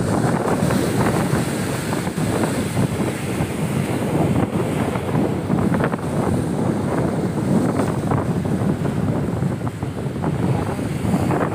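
Wind buffeting the microphone, with waves breaking and washing over the rocks of a stone breakwater in a rough sea.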